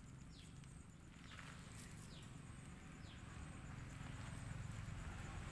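Puppies whimpering faintly, several short high-pitched cries that fall in pitch, with a few light clicks of small paws on dry ground and leaves.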